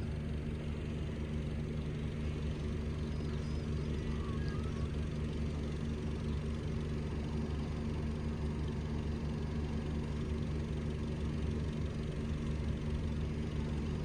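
Car engine idling steadily, a low even hum.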